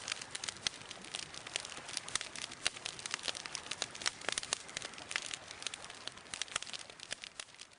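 Wood campfire crackling: a dense, irregular run of sharp pops and snaps over a steady hiss, fading away near the end.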